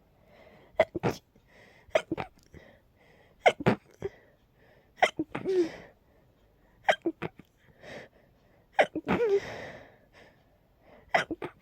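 A person sneezing over and over in sleepy, tired night-time sneezes: about seven sharp sneezes, roughly one every one and a half to two seconds, some coming as a quick double burst or trailing off in a short voiced exhale.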